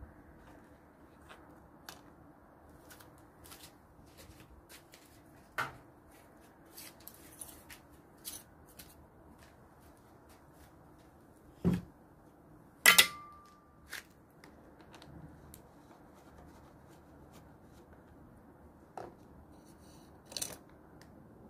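Hand tools working on a lawnmower engine: scattered small clicks and light knocks as the 10mm bolts and cover are undone. There is a louder knock about twelve seconds in, then a sharp metallic clink with a brief ring about a second later.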